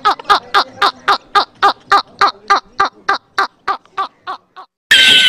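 A man laughing hysterically in a rapid run of 'ha-ha' bursts, about five a second, slowing and fading out, then a sudden loud burst of music just before the end.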